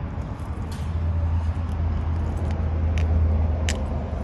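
Chevrolet Monte Carlo SS idling with a steady low hum. Footsteps crunch on gravel about once a second.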